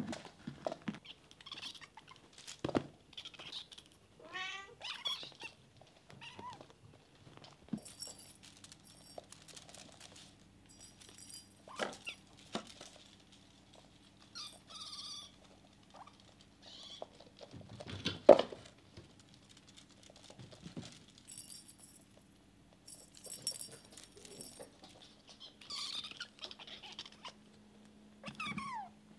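Bengal kittens meowing and chirping over and over in short, high calls, some gliding up or down in pitch, with the loudest call about two-thirds of the way through. Small knocks and rustles from their play come between the calls, and a faint steady hum runs under the second half.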